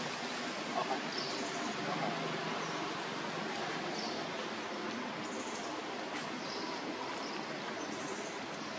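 Outdoor ambience: a steady hiss with short, faint high chirps every second or so, typical of small birds calling in the distance.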